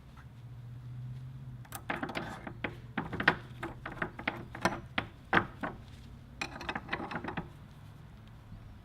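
Workshop clatter: a run of irregular sharp clicks and knocks over a low steady hum, from about two seconds in to about seven seconds.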